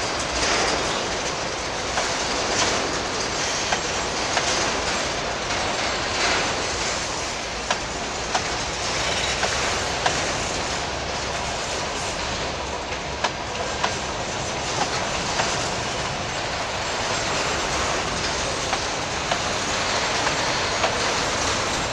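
Freight wagons rolling past close by: a steady rumble and rattle of steel wheels on the rails, broken by irregular sharp clacks as the wheels cross rail joints.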